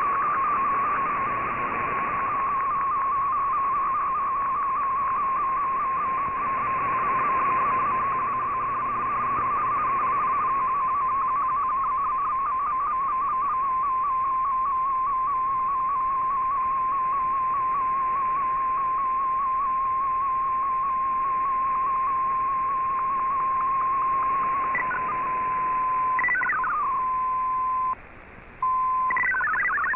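Shortwave receiver audio of an MFSK digital-mode picture transmission: a single warbling tone near 1 kHz over steady hiss, sending an image line by line. Near the end the tone turns flat, glides briefly, drops out for half a second, and then gives way to a rapid chatter of switching MFSK data tones as the text transmission resumes.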